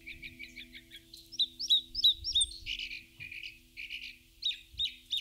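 Small songbird chirping in a quick, irregular run of short high calls, some with an upward hook, loudest about two seconds in, over a soft held tone of background music.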